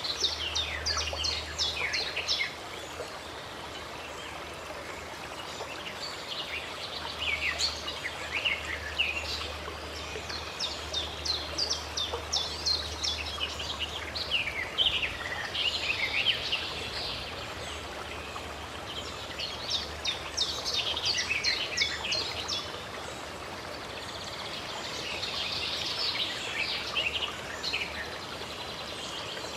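Birds singing in bouts of quick chirps and trills, several times over, above the steady rush of running water.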